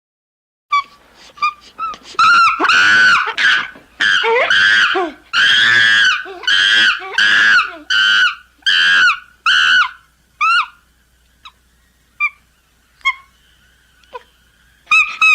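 Chimpanzee-like screaming calls from a creature sound effect. A run of about a dozen loud, arching screams starts with short yelps and thins out to a few sparse calls, then a fresh burst of screams comes at the very end.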